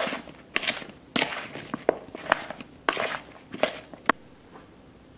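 Metal spoon tossing raw, oiled potato wedges in a bowl: irregular clinks and scrapes of the spoon on the bowl with the wedges sliding over each other, dying down about a second before the end.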